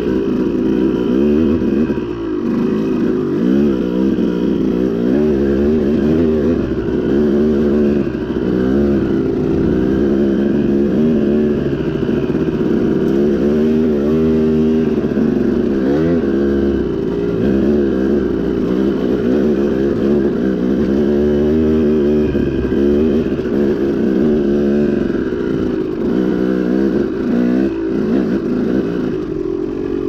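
KTM two-stroke dirt bike engine running under load on a dirt trail, its pitch rising and falling over and over as the throttle is worked.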